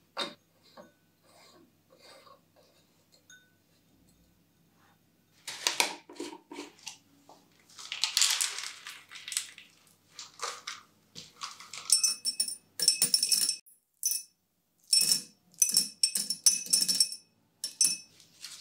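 Small white decorative stones poured from a plastic jar into a clear glass vase: several bursts of clattering and clinking, with the glass ringing high. Before that come scattered knocks and rattles of handling.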